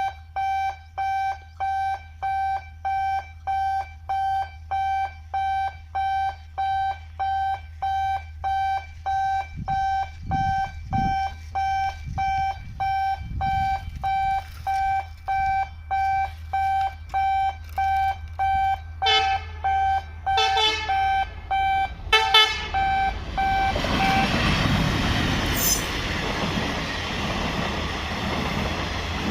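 An electronic warning alarm beeps steadily, about one and a half beeps a second, for most of the time. About two-thirds through, a train horn honks in a few short blasts, and near the end the rumble of an approaching train builds as the beeping stops.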